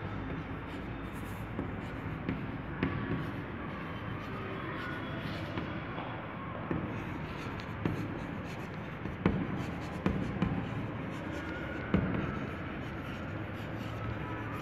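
Chalk writing on a blackboard: scratching strokes with sharp, irregular taps as the chalk strikes the board, over a steady room hum.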